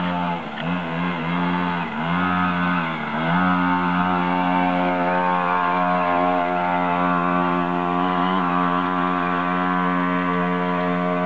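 Small dirt bike's engine running at high revs. The revs dip and climb a few times in the first three seconds, then hold steady.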